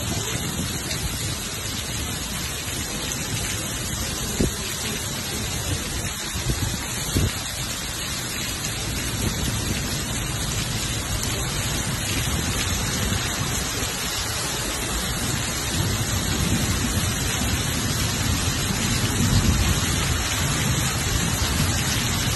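Heavy tropical downpour: a steady, dense hiss of rain falling on a road and roadside plants. A low rumble swells in the second half.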